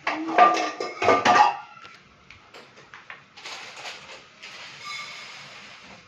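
Clattering knocks at the front-loading washing machine's drum and door during the first second and a half, then a softer rustle of washed clothes being dragged out of the drum.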